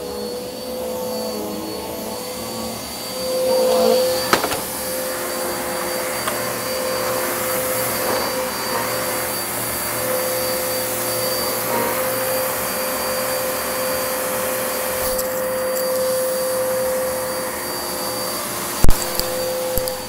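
Upright vacuum cleaner running on thick shag carpet, its motor holding a steady pitched whine as the head is worked back and forth, swelling louder briefly a few seconds in. A sharp knock comes a few seconds in, and a louder one near the end.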